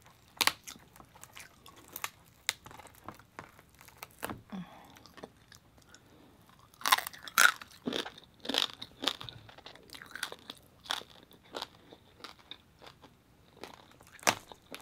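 Chewing and crunching of crispy roasted pig skin (lechon), an irregular run of sharp crunches, with a few louder ones about seven seconds in and near the end.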